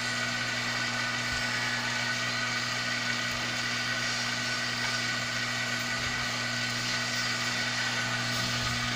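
Hot-air rework gun running steadily, its fan whirring with a hiss of blown air with a constant low hum, as it heats a circuit board to loosen soldered surface-mount parts.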